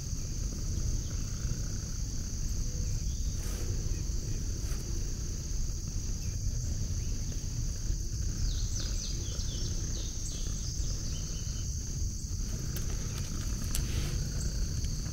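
A steady, high-pitched insect chorus of crickets or katydids over a low, constant rumble. About eight seconds in comes a quick run of short falling chirps, and there are a few soft clicks.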